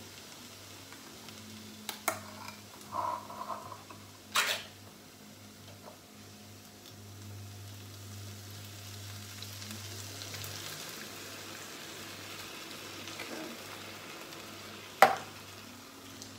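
Frying pan sizzling as canned whole peeled tomatoes are poured into browned eggplant and stirred with a wooden spoon, with a few sharp knocks, the loudest near the end.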